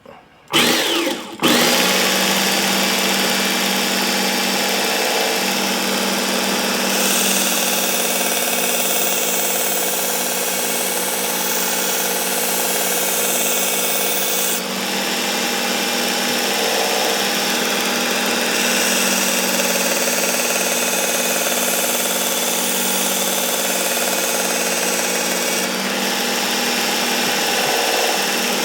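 Work Sharp Ken Onion Edition Mk2 belt sharpener with its blade grinding attachment, switched on about a second in and running steadily with a motor whine. A brighter hiss rises during two long stretches as the meat cleaver's edge is ground on a fine-grit belt.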